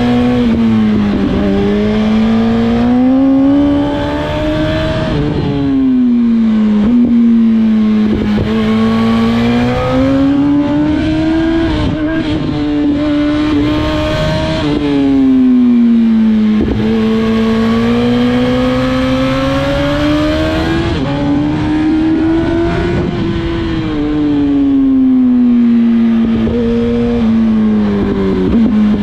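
2007 Yamaha YZF-R1 (RN19) inline-four engine, ridden hard. Its revs climb and fall back several times, with quick drops in pitch between long pulls.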